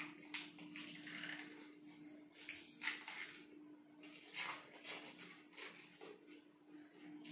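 Plastic cling wrap crackling and rustling in irregular clicks as the roll is turned and picked at by hand, over a faint steady hum.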